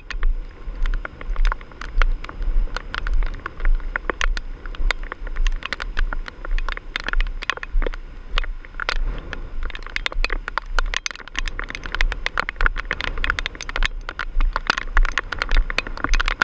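Gusty storm wind buffeting the microphone in a steady low rumble, with rain striking the phone in dense, irregular ticks and crackles.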